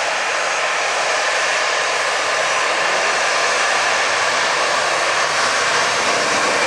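Jet airliner engines heard as a steady, loud noise that grows slightly louder.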